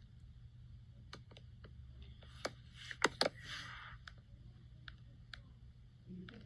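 Scattered light clicks and taps with a brief rustle, the loudest being two sharp clicks about three seconds in, over a low steady hum: handling noise of a hand-held device.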